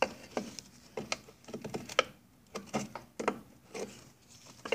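Screwdriver tip clicking and scraping against a rusted spring clip on the outboard's front-panel mounting tab as the clip is pried and pushed off, in a series of irregular sharp clicks.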